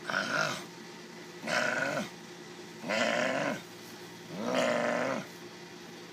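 Baby striped skunk calling four times, about a second and a half apart, each call lasting under a second and rising then falling in pitch.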